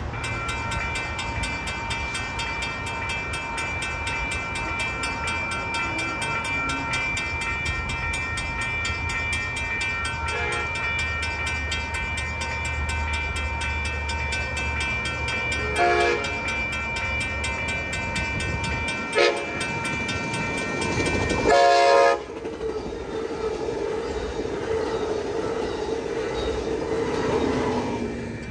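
Railroad crossing bell ringing rapidly and steadily as the warning lights flash. An approaching Amtrak train sounds its horn for the crossing: two short blasts, then a longer, louder one. A steady hum from the train follows.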